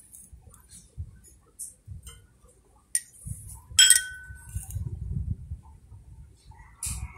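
A metal spoon set down with one sharp clink about four seconds in, ringing briefly. Soft handling knocks and rustles of objects on the towel around it.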